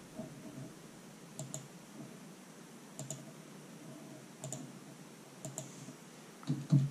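Sparse clicks from a computer keyboard and mouse, coming in quick pairs about every second and a half, with a couple of louder thumps near the end.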